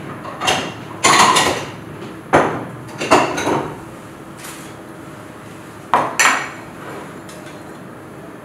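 Kitchen dishes and bowls clattering and clinking as they are handled, in several separate knocks, with a pair close together near the end.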